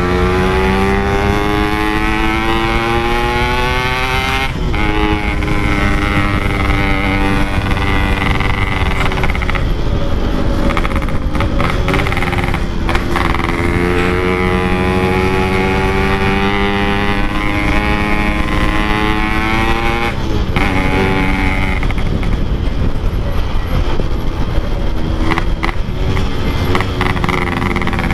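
Yamaha RX-King two-stroke single-cylinder engine through a Packing Power exhaust, revving hard and climbing in pitch through the gears, with gear-change breaks about four and a half and about twenty seconds in. Wind noise on the microphone runs underneath.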